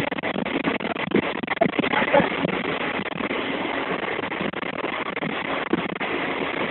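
Passenger train running, heard from inside the coach: a steady noise of wheels on the track with irregular clicks and knocks.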